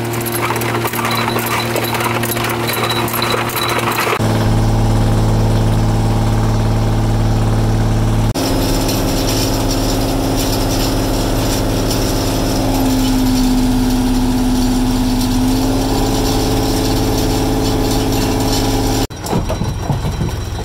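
Fishing boat's engine running steadily, its tone shifting abruptly about four and eight seconds in. Near the end the engine sound drops and a few clattering knocks come through.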